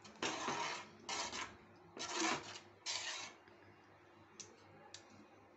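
Metal spoon stirring grated beetroot halwa in a pan, wet scraping strokes four times in about three seconds, then two faint clicks near the end.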